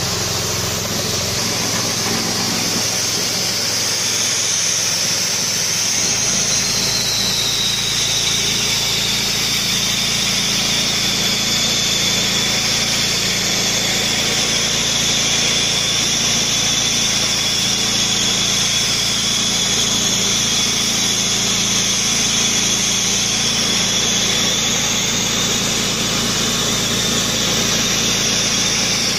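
Dry sandblaster blasting grit through a hand nozzle, stripping the stain off wood: a steady hiss of compressed air and abrasive, with a thin high whistle on top and a steady low hum underneath.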